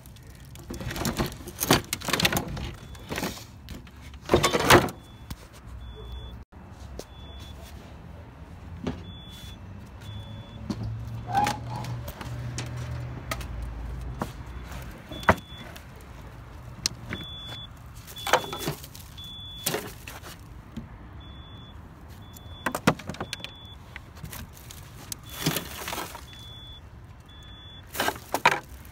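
Irregular knocks and clanks of scrap junk being shifted and dropped while rummaging through a dumpster. Behind it, a faint high-pitched beeping comes and goes.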